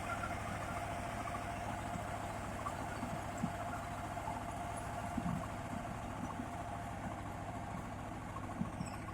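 Mini combine harvester running steadily: an even engine rumble with a steady whine above it and a few light knocks.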